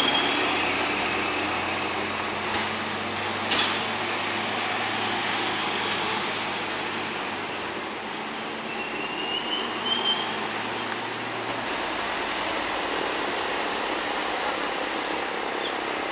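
Heavy loaded trucks passing slowly on a winding road: diesel engine drone with road and tyre noise. A low steady engine hum stops about twelve seconds in.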